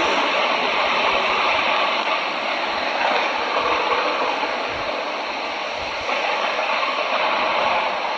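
Airbus A330 airliner's jet engines, heard from a distance as a steady rushing noise while the aircraft rolls along the runway.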